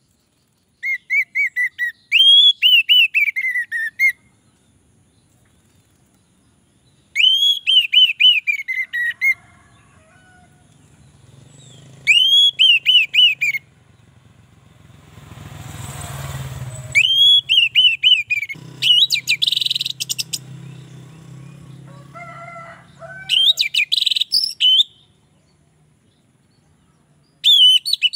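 Caged orange-headed thrush singing in short loud phrases of rapid, repeated, arching whistled notes, about seven phrases with pauses between. A low rumbling noise swells and fades in the middle.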